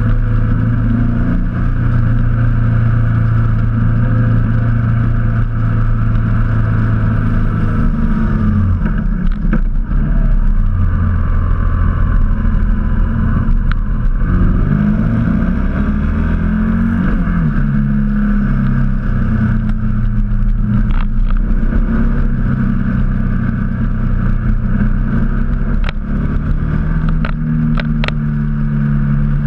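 Motorcycle engine running under way, heard from a camera mounted on the bike, with steady wind rush. The engine note drops about eight seconds in, then falls and rises again around the middle as the bike slows for a hairpin bend and pulls out of it; a few light ticks near the end.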